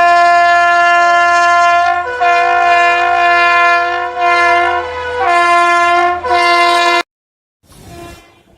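WAP7 electric locomotive's twin-tone horn sounding in one long honk, its two notes overlapping and changing over several times. It cuts off abruptly about seven seconds in.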